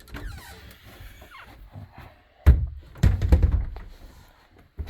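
A sharp thump about two and a half seconds in, then a quick run of heavier thuds: footsteps on the hollow floor of a fifth-wheel trailer. A fainter scraping comes before the thump.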